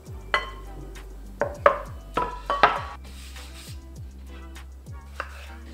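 Background music: a handful of short plucked notes in the first few seconds over a steady low bass.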